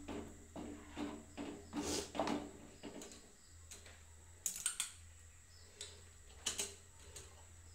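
Wooden spatula stirring thick chickpea curry in a metal pan, short scraping strokes about twice a second for the first two seconds or so, then it stops. A few sharp clicks follow in the second half.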